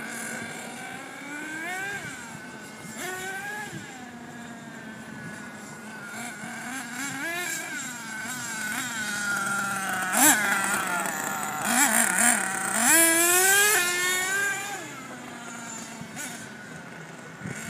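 A radio-controlled truck's small two-stroke engine revving up and down as the truck runs at speed, its pitch rising and falling again and again. It is loudest about halfway through, with several sharp rising whines as it accelerates hard, then settles back to a steadier drone.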